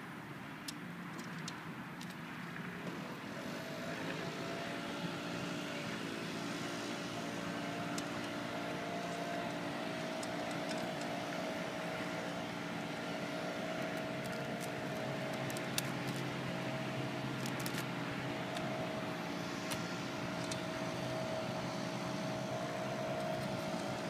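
An engine drone comes in about three to four seconds in, rising briefly in pitch and then holding a steady hum. Faint small clicks of metal snap swivels and hairpin clips being handled sound now and then.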